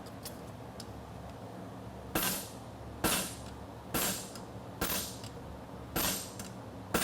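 Hammer striking a hot steel horseshoe bar on an anvil, about six ringing blows roughly a second apart starting about two seconds in, as the edges of a draft bar shoe are cleaned up.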